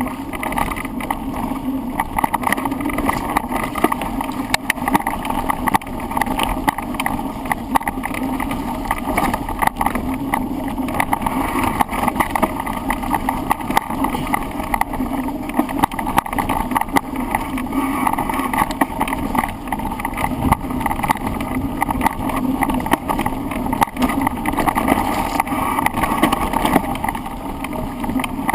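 Continuous wind rush over a handlebar-mounted camera's microphone on a bicycle descent, with constant rattling and knocking from the bike and mount jolting over rough ground.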